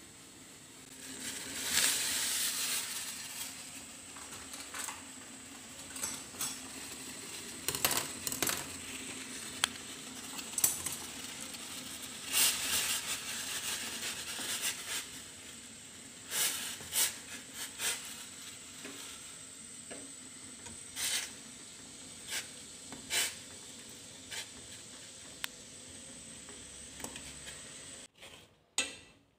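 Chopsticks knocking and scraping against a stainless steel pot as noodles are stirred in boiling water. There are many short irregular clicks over a steady bubbling hiss, with a louder rushing burst about two seconds in.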